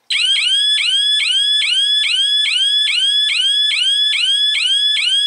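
GSM security alarm system's siren going off loudly: a rapid, even series of rising electronic whoops, about two a second, starting suddenly.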